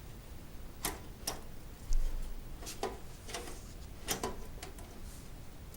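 Irregular clicks and light knocks of an SSD in its 3.5-inch metal adapter bracket being fitted into a PC case's drive bay, about ten taps with a duller thump about two seconds in.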